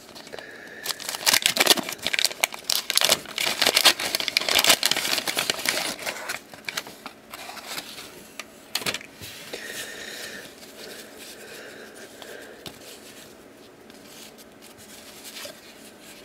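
Paper wrapper of a 1989 Bowman baseball card wax pack being torn open and crinkled, a dense crackling that is loudest in the first several seconds. After that comes softer rustling as the stack of cards is handled and leafed through, with one sharp click about nine seconds in.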